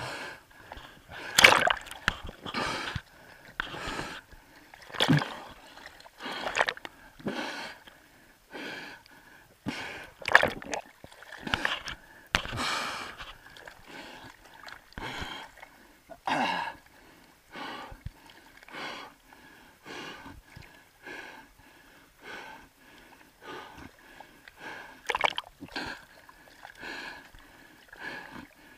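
Seawater splashing and sloshing against a camera bobbing at the surface, in irregular bursts about every second, with a spearfisher's heavy breathing through a snorkel after a hard fight with a large fish.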